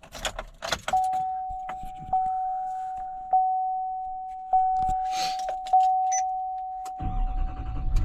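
Keys jangling and clicks as the truck is entered, then a Chevrolet Silverado's warning chime: one steady tone re-struck about every 1.2 seconds. About seven seconds in, the L5P Duramax 6.6 L V8 turbo-diesel starts with a low rumble that keeps running.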